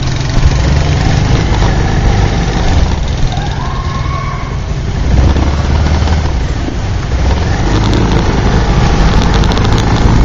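Motorbike engine running at low speed in slow, congested traffic, with a steady low rumble of engines and road noise from the surrounding vehicles.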